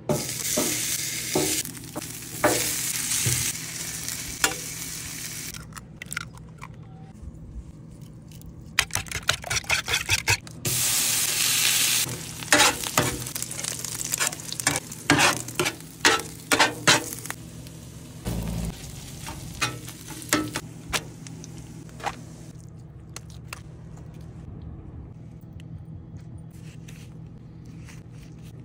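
Beef chorizo and eggs sizzling on a hot flat-top griddle, with loud hissing stretches near the start and around the middle, broken by many sharp taps and scrapes on the griddle surface. The sounds thin out and grow quieter in the last third.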